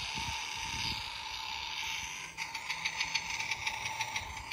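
Toy CNG auto-rickshaw's battery-powered sound unit playing an engine sound effect. It starts as a hiss with a steady tone and changes about two and a half seconds in to a rapid, even putter like a small engine idling.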